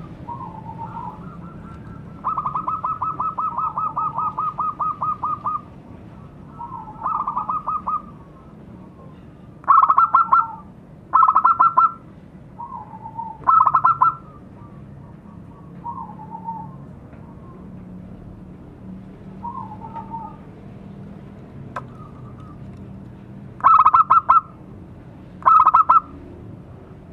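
Zebra dove (perkutut) singing: phrases of rapid staccato cooing notes. A long run of about three seconds comes a couple of seconds in, followed by several shorter, louder bursts, with softer, lower coos between them.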